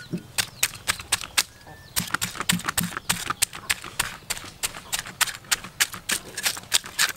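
Cleaver blade scraping the scales off a large fish in quick rasping strokes, about four a second, with a brief pause a little under two seconds in.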